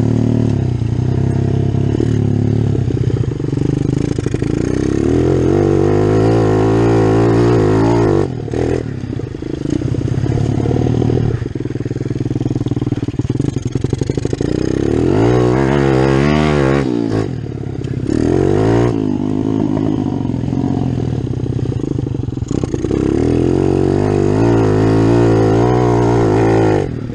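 Big-bore Kawasaki KLX110 pit bike's single-cylinder four-stroke engine, heard from on board while being ridden. Its pitch climbs and falls several times as the rider works the throttle through the gears, with short dips when the throttle closes.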